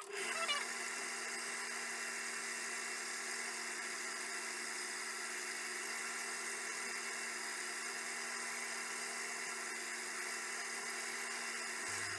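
Wood lathe running steadily at speed, an even motor hum and whine that holds without change for about twelve seconds.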